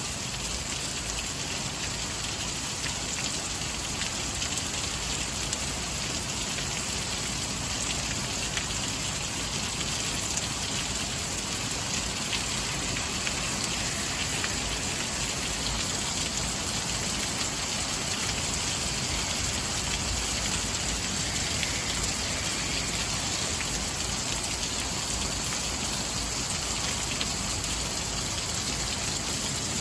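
Heavy thunderstorm rain pouring down, a steady, even hiss of downpour.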